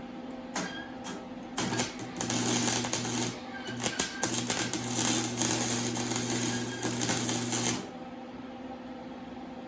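Electric arc welder crackling in several short runs for about six seconds, with a steady electrical hum under it, as weld is laid to fill a big gap in an exhaust pipe joint.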